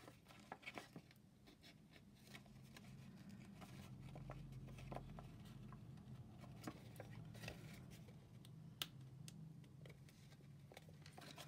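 Very quiet handling of paper and card, with faint rustling and scattered small clicks as mini metal brads are pushed through paper circles. A low steady hum sits underneath.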